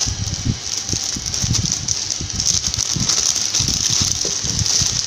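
Clear plastic wrapping crinkling and rustling as a cardboard parcel is handled and pulled out of it, with irregular dull bumps from the box and hands.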